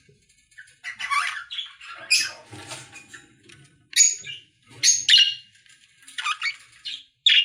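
Pet lovebirds squawking and chirping: a string of short, shrill high-pitched calls at irregular intervals, several birds overlapping.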